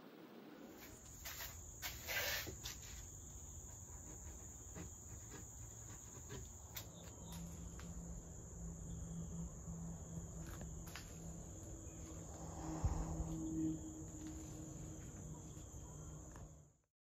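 A faint, steady, high-pitched trill like an insect's over a low hum, with a few brief knocks and taps; the loudest come about two seconds in and near thirteen seconds. Everything cuts off suddenly just before the end.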